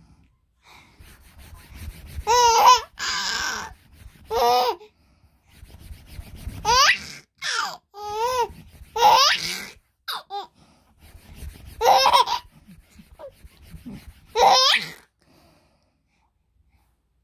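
A baby laughing and squealing in short high-pitched bursts, about eight times, with low rubbing of clothes and handling in between.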